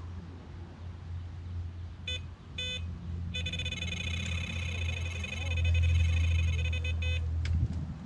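Electronic carp bite alarm beeping as a fish takes line. Two short beeps come about two seconds in, then a rapid unbroken run of beeps for about four seconds, then a single beep near the end.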